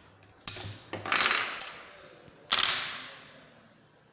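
Loose steel drill bits and a hole saw clinking against each other as they are handled: a few sharp clicks, then two louder metallic clatters about one and two and a half seconds in, each ringing away over about a second.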